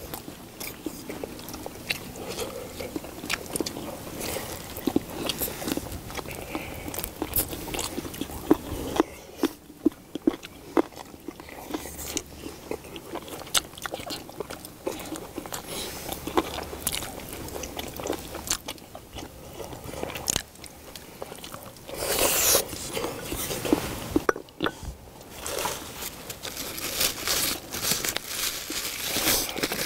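Close-up eating sounds: people chewing braised spicy chicken, with many short clicks and taps of chopsticks and bowls. Near the end a paper tissue crinkles.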